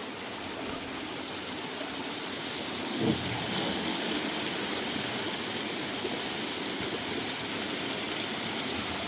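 Steady rush of stream water flowing through a water-intake structure, a little louder from about three seconds in, with a single knock at that point.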